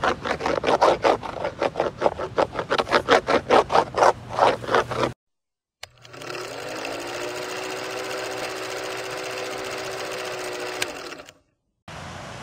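Surfboard wax rubbed hard onto a board's deck in quick back-and-forth strokes, about four a second. After a short silence, a steady whirring film-projector sound runs for about five seconds and stops.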